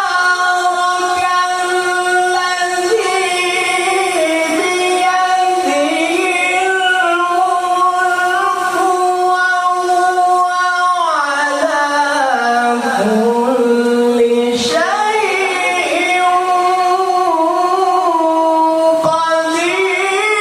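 Melodic Quran recitation (tilawah) by a qori: one voice holding long notes with ornamented turns. The voice sinks to a lower pitch partway through and climbs back up after a brief breath.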